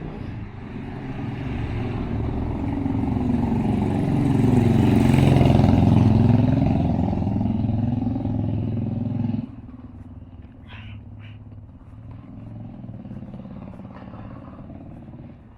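A motor vehicle passing close by: its engine grows louder, peaks about five to six seconds in as its pitch drops going past, then cuts off sharply at about nine and a half seconds, leaving faint background noise.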